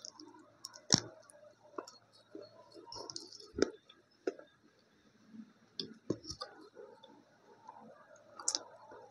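A piece of multani mitti (Fuller's earth clay) being bitten and chewed close to the microphone: several sharp crunches spread through, between soft wet chewing sounds. The clay is sticky in the mouth.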